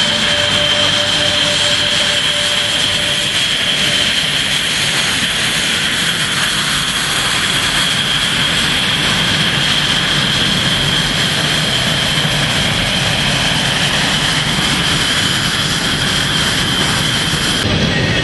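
F/A-18 Hornet jet engines running with a steady high-pitched whine over a constant rush.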